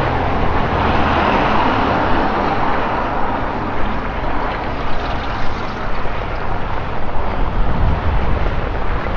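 A car passing on a rain-soaked street, its tyres hissing on the wet road, loudest in the first few seconds and then fading as it moves off. Steady heavy rain continues underneath.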